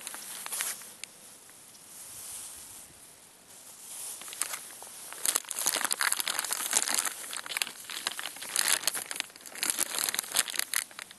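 Clear plastic bag crinkling and crackling as the wrapped rifle is handled in it. A short burst comes at the start, then a quieter stretch, and steady, dense crinkling from about five seconds in.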